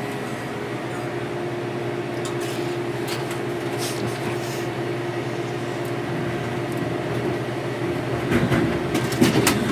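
Steady mechanical hum from the machines in the vending area, with a few light clicks and handling rustles near the end.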